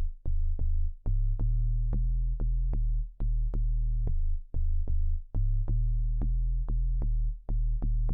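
Amapiano beat playing: deep, sustained bass notes that change pitch every half second or so (the log-drum bass typical of the style), under a steady pattern of short, sharp percussion hits.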